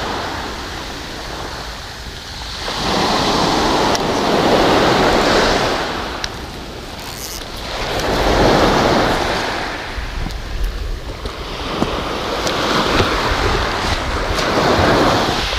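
Small surf breaking and washing up the beach close by, the hiss of foam swelling and fading three or four times.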